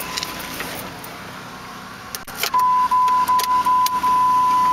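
A few light clicks, then a loud, steady electronic beep starts about two and a half seconds in and holds with brief flickers. No engine cranking is heard: the Jeep Grand Cherokee with the dead battery and blown 4.0 inline six does not turn over.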